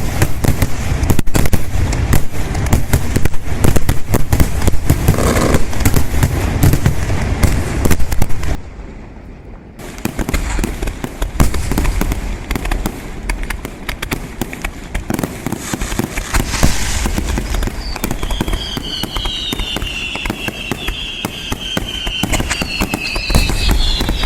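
Fireworks going off in a dense, rapid crackle of cracks and bangs, easing briefly about a third of the way in and then resuming. Several falling whistles join near the end.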